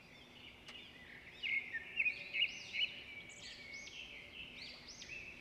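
Small birds chirping, with many short rising-and-falling calls overlapping. They are loudest from about a second and a half to three seconds in.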